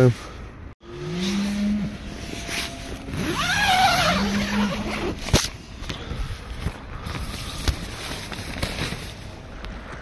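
A zip pulled in a few short runs, each a brief whirring pull, with rustling of nylon tent or sleeping-bag fabric throughout.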